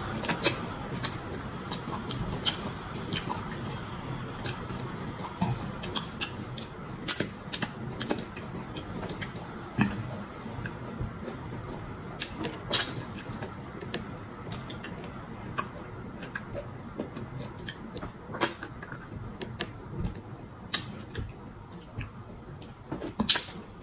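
Close-up eating of starch fufu and fish in sauce by hand: wet chewing and lip-smacking, with irregular sharp mouth clicks and smacks.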